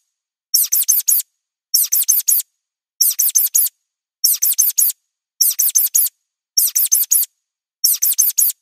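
Mouse squeak sound effect: high, thin squeaks in quick clusters of four, repeated seven times at a little under a second apart, with silence between clusters.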